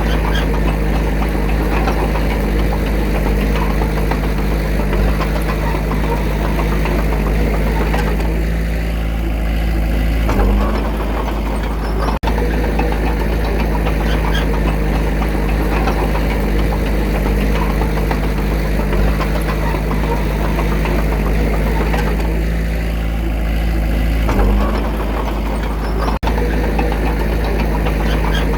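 Small bulldozer's diesel engine running steadily. Its note dulls for a couple of seconds and then shifts in pitch, about ten seconds in and again about fourteen seconds later.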